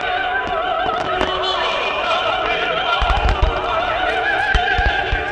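Operatic singing, a high voice with wide vibrato, mixed with firework shells bursting. The bursts are sharp cracks, with a run of deep booms about three seconds in and more near the end.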